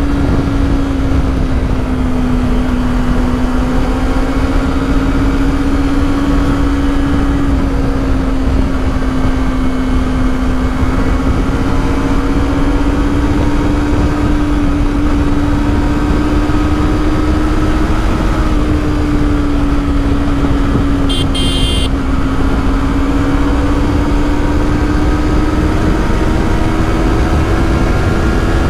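A Yamaha YZF-R3's 321 cc parallel-twin engine running at a steady cruising speed. Its pitch drifts only slightly, over a steady low rush of wind and road noise. A brief high-pitched tone sounds about two-thirds of the way in.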